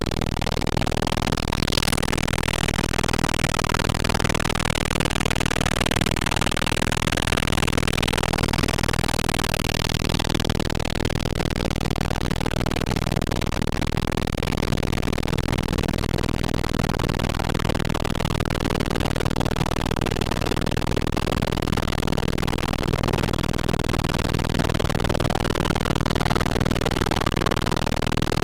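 Steady engine and rotor noise of a helicopter heard from inside the cabin: a constant loud drone and hiss with no breaks.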